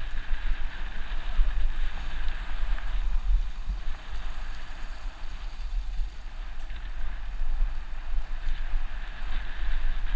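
Wind buffeting the microphone of a camera on a mountain bike descending a gravel track at speed, over a steady hiss of tyres rolling on loose gravel.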